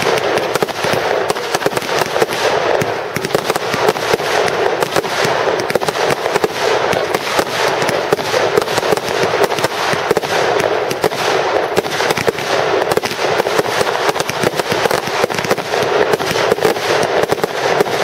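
Aerial fireworks bursting in a dense, unbroken barrage of bangs and crackle, many reports every second.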